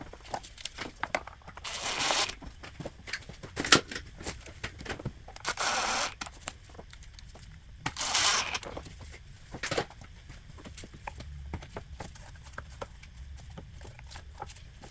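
Hand tools clicking and knocking on metal, with three short rasping runs of a ratchet a few seconds apart, while engine-bay parts are bolted back on after a serpentine belt replacement.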